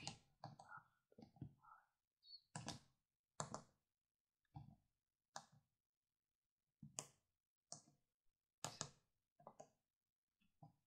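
Fingers pressing keys on a 4x4 membrane keypad set in a 3D-printed case: about a dozen short, soft clicks at an uneven pace as a code is typed in.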